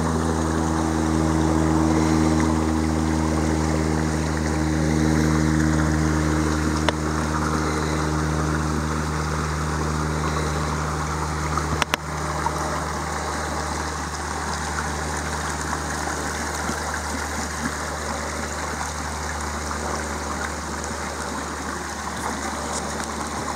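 Water of a shallow rocky creek running over stones, with a steady low engine drone underneath. The drone is strongest in the first half and fades to a faint hum after about halfway, where there is a brief click.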